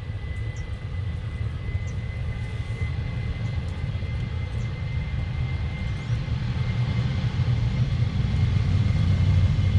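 Jet airliner's engines heard across the runway: a low rumble with a thin steady whine above it, growing louder towards the end as the aircraft rolls closer along the runway.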